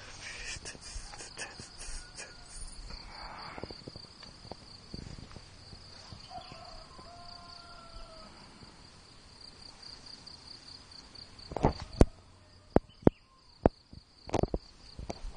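A steady high insect trill, finely pulsing, runs throughout. A handful of sharp clicks and knocks near the end are the loudest sounds, with softer clicks in the first few seconds.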